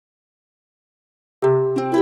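Dead silence for over a second, then soundtrack music starts abruptly: plucked string notes in quick succession over a held low note.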